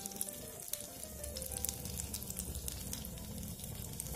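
Oat-and-egg-white-coated tempeh frying in shallow oil in a pan: steady sizzling with many small crackles.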